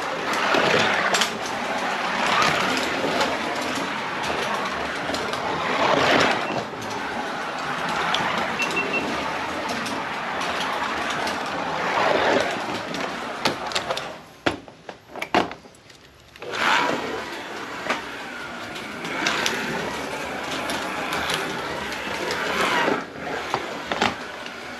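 Carrera DIGITAL 132 slot cars racing: their small electric motors and gears whirring, swelling each time a car passes close and fading as it runs off, with a brief lull and a few clicks a little past halfway.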